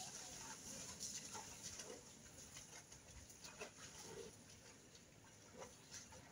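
Near silence: faint outdoor ambience with scattered soft clicks.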